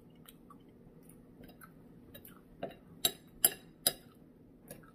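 Spoon clinking against a soup bowl while eating: scattered light clicks, then four sharp clinks in quick succession about three seconds in.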